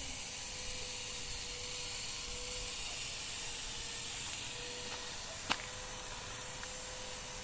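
Steady outdoor hiss with wind rumbling on the microphone and a faint steady hum, broken by a single sharp click about five and a half seconds in.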